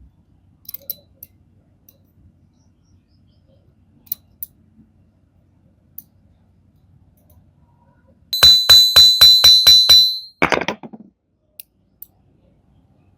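Metal clinking: faint small clicks, then a quick run of about eight sharp clinks with a ringing tone, followed by a short, lower scrape.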